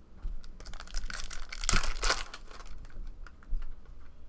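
Foil wrapper of a baseball trading-card pack being torn open and crinkled, loudest about two seconds in, with light clicks and flicks as the cards are handled.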